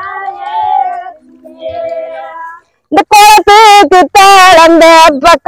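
Women singing a Tamil kummi folk work song, unaccompanied. After a brief break about three seconds in, the singing becomes much louder, close to the microphone.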